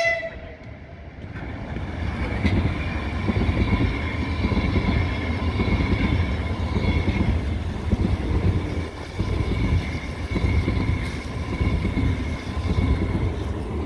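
Electric multiple-unit train running through the platform. A heavy rolling rumble builds over the first couple of seconds and holds steady, with a faint steady whine above it.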